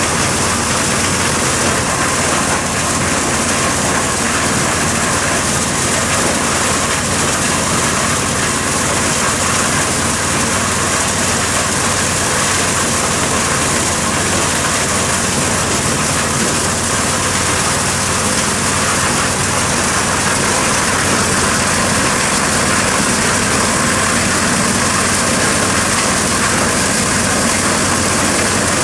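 A four-wheeled corn sheller machine running steadily: a constant engine drone with a rushing noise over it, holding an even level throughout.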